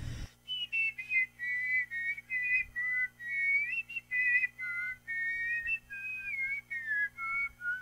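Double whistling: one person whistles two tones at once through two openings in the mouth, the pair of notes moving together in harmony through a melody of short phrases with brief gaps.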